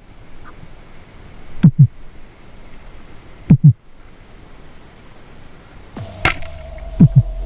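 Deep heartbeat-like double thumps, each pair dropping in pitch, repeating every two seconds or so. About six seconds in comes a single sharp crack with a low rumble after it, then one more double thump.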